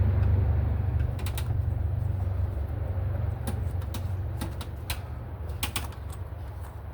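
Scattered sharp clicks and taps of intake hoses and clamps being worked back onto a throttle body by hand, over a low steady rumble that fades toward the end.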